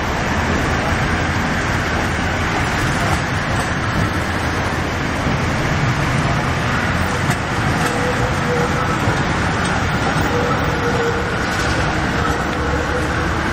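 GTT 6000-series low-floor articulated tram rolling past at low speed over street traffic noise, with a faint steady whine from about halfway as it goes by.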